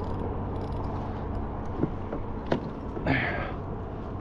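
Creaks and a few sharp knocks from a kayak angler's rod, reel and hull under load from a big hooked jack crevalle, over a steady low hum. A short hiss comes about three seconds in.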